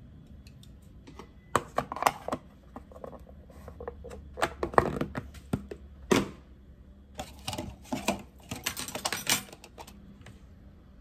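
Chopsticks clicking and tapping against a plastic food container and a plate as food is served, in three clusters of quick taps and light knocks.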